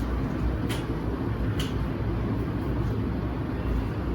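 Steady low rumble of background noise, with two faint short clicks about a second apart early on.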